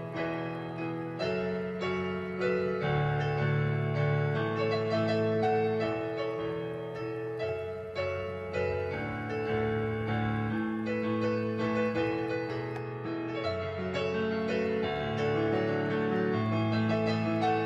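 Background piano music, a slow run of held notes changing about once a second.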